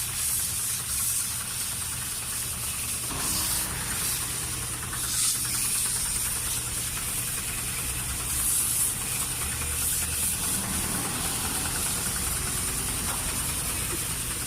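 Water spraying in a steady hiss over a constant low machine hum, as in a hose or washer spray being used for a wash-down.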